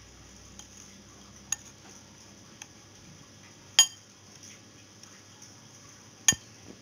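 Metal spoon tapping and clinking against a ceramic plate as it rolls cookie balls through powdered milk: a few light taps, then two sharp clinks about four and six seconds in.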